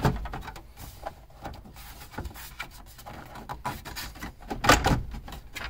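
Jeep dash trim pieces being worked loose and handled: scattered light clicks and knocks, with a sharper clatter at the start and again near the end.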